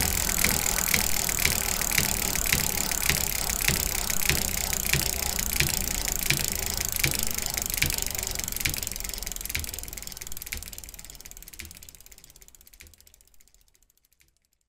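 Rhythmic mechanical ticking, about two or three clicks a second over a hiss, steady at first and then fading out over the last several seconds.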